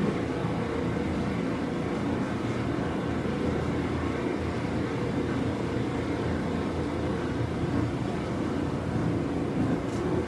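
Seibu 9000 series electric train running, heard from inside the motor car, with the steady drone of a traction motor that makes an abnormal noise over the rolling noise of the wheels on the rails.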